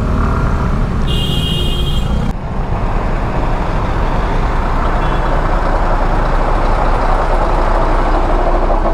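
Wind and road noise from riding a Yamaha Mio Gear 125 scooter, heard as a steady rush on a helmet-mounted microphone. A brief high-pitched tone sounds about a second in.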